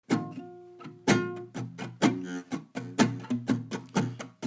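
Guitar playing, plucked or strummed chords in a steady rhythm.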